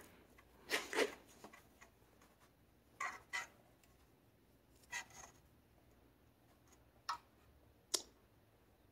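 A handful of faint, short clicks and rustles, some in pairs, as small wires and spade connectors of an engine's on/off switch are handled and fitted together.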